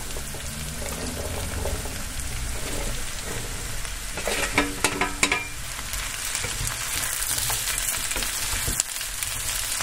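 Onion, carrot and zucchini frying in oil in a frying pan with a steady sizzle, as the zucchini cubes are tipped in and stirred. A few sharp clicks come about four to five seconds in.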